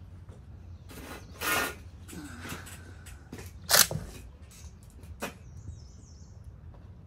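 Sharp clacks and clicks of a rifle being worked on the firing line, the loudest a little under four seconds in, with a brief rasping noise about a second and a half in. Birds chirp faintly near the end.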